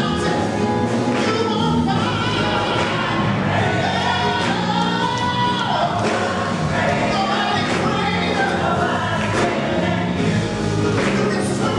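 Live gospel song: a male soloist singing over a choir.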